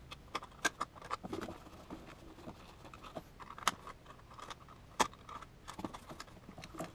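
Scattered small clicks and plastic rattles as hands handle a fog light wiring harness and fit its relay under the hood, with one sharper click about five seconds in.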